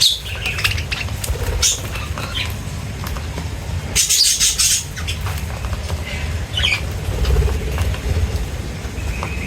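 Small birds chirping and squawking at a feeder in short separate calls, with a louder harsh burst about four seconds in, over a steady low rumble.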